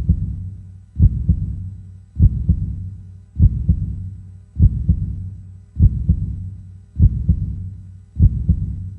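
Heartbeat sound effect: slow, deep lub-dub double thumps, about one beat every 1.2 seconds, with a low rumble fading between beats.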